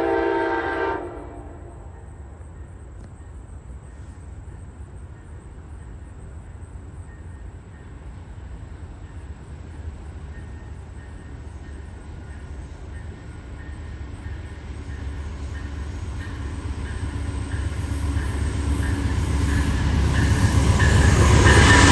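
A train horn chord sounding and ending about a second in, then the low rumble of a train that grows steadily louder as it approaches. Rail and wheel noise rises over the last few seconds.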